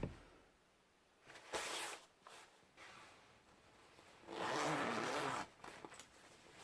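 The newly sewn-in replacement zipper on a child's jacket being zipped in two pulls: a short rasp about a second and a half in and a longer one a little past the middle, with a few small clicks between.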